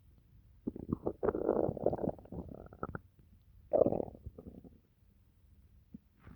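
Human stomach gurgling while digesting a pizza meal: a long run of gurgles starting about a second in and lasting around two seconds, then a shorter gurgle near the four-second mark.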